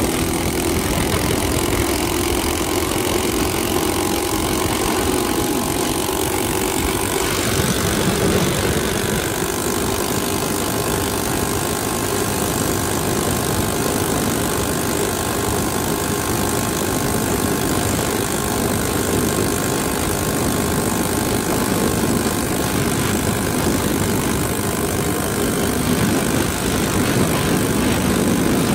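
Coleman CT200U minibike's 196cc single-cylinder engine, fitted with a 30 mm PWK carburetor jetted 125/41 and a pod air filter, running steadily under way, mixed with wind and road noise.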